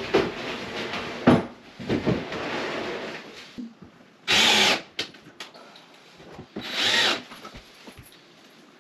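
Cordless drill driving screws to join two vanity cabinet boxes, in two short runs about four and seven seconds in. Before them, knocks and scraping from the wooden cabinet boxes being nudged into line.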